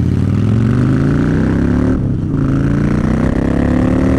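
Harley-Davidson Fat Bob's V-twin engine pulling under acceleration, its pitch rising, falling back about two seconds in as a gear is changed, then rising again.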